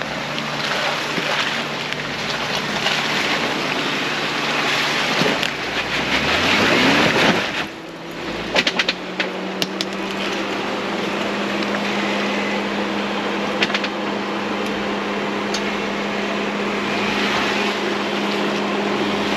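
Jeep driving an off-road trail: engine running under a steady rush of tyre and wind noise. About halfway through, the engine note changes and then holds steady, with a few sharp knocks and rattles just after.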